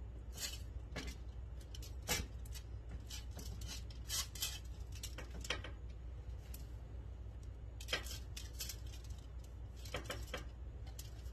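Aluminium foil crinkling in irregular sharp snaps as hands pat and rub dry seasoning into a rack of ribs lying on it, over a low steady hum.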